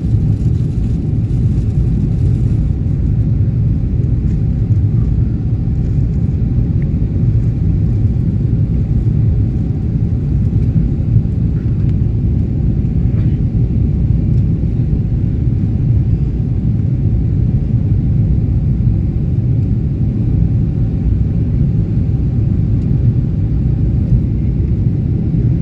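Steady low rumble of a Boeing 777's engines and airflow heard inside the passenger cabin during the climb after takeoff, with a faint steady hum above it.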